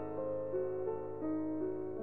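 Background music: a slow piano melody, single sustained notes moving one to the next every few tenths of a second.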